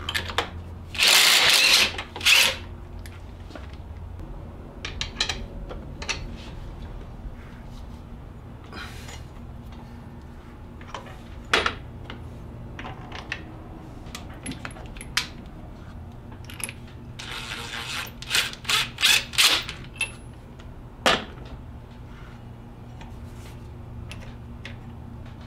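DeWalt cordless impact driver hammering on the alternator pulley nut: one burst about a second in and a shorter one right after, as the stock pulley is taken off. Metal clinks of tools and parts follow, then a quick run of five or six short rattling bursts about two-thirds of the way through.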